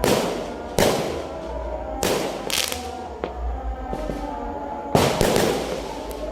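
Fireworks going off: four sharp bangs, one at the start, one just under a second in, one about two seconds in and one about five seconds in, each trailing off in a fading tail.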